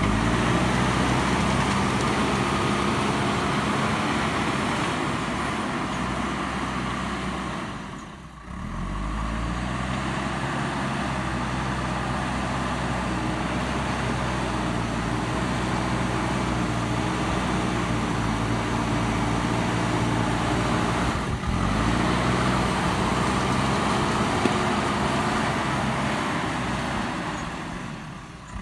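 JCB backhoe loader's diesel engine running under load, its revs rising and falling as it works. The sound dips briefly about eight seconds in and again near the end.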